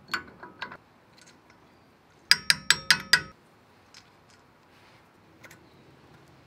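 Metal hub parts clinking and tapping as a splined hub flange is fitted over the wheel studs of a front hub. There are a few soft clicks at first, then a quick run of about six ringing metallic clinks within a second.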